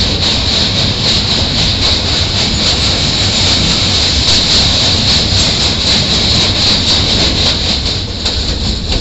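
Passenger train rolling across a steel truss railway bridge, heard through an open carriage window: a loud steady rumble with a fast clickety-clack of the wheels. The din eases slightly near the end.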